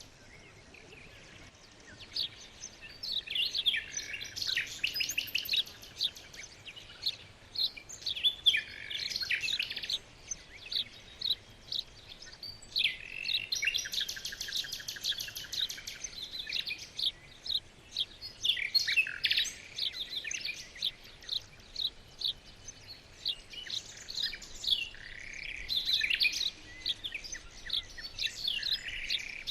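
Songbirds singing: several birds chirping and trilling. Dense runs of fast repeated notes come a few seconds in and again about halfway.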